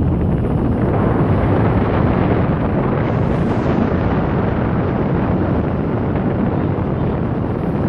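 Steady roar of Niagara Falls, a loud, even rushing rumble heaviest in the low end, with wind buffeting the microphone.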